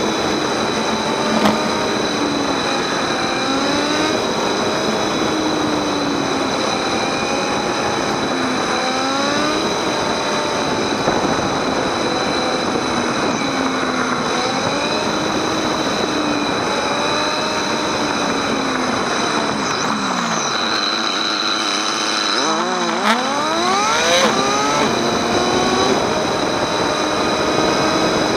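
Motorcycle engine under way, its note rising and falling with throttle and gear changes, over steady wind and road noise. About three-quarters of the way through the note drops away, then climbs sharply as the bike accelerates.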